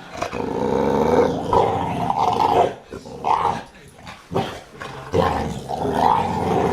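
A dog vocalizing in long, drawn-out sounds: one lasting a couple of seconds at the start, two short ones, then another long one near the end.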